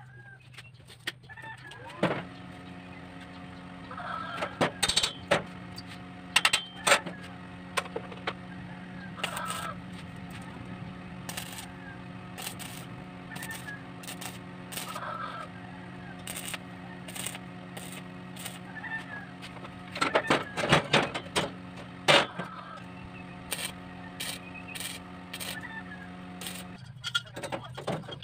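Steady electrical hum of a welding machine running, starting about two seconds in and stopping near the end, with scattered sharp clicks and crackles over it.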